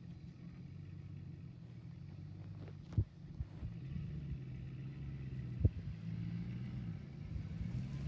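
Chevrolet Silverado pickup's engine running at low speed as the truck drives slowly across grass, a steady low hum that grows slightly louder after about three seconds. Two short sharp knocks stand out, at about three seconds and just before six seconds.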